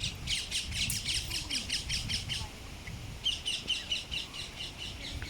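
Ring-necked parakeets calling in two rapid runs of short, high squawks, with a brief pause about two and a half seconds in.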